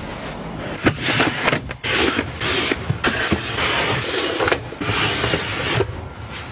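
Several bursts of rustling from objects being handled and put away, with a few light knocks.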